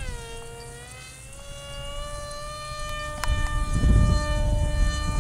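Electric motor and propeller of a Depron foam RC plane whining in flight. The pitch drops sharply as the throttle comes back, rises a little, then holds steady at part throttle as the plane hovers. From a little past halfway, low wind rumble on the microphone joins it.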